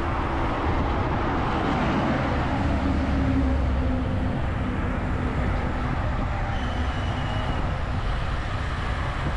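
Road traffic heard from a moving bicycle: a steady low rumble of wind and road noise, with a passing motor vehicle's engine hum swelling about three seconds in.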